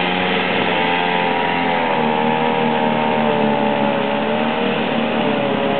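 An engine running steadily, its pitch wavering slightly up and down, over a constant hiss.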